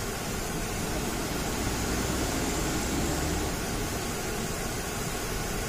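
Loaded Mitsubishi Canter dump truck's diesel engine working under load, a steady noisy drone with hiss over it and a low rumble that swells about two seconds in.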